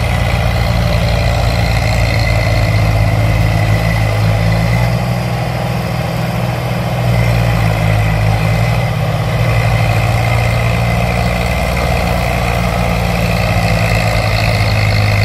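Toy RC mini tractor's engine-like running sound, a loud, steady idling hum that stops abruptly at the end.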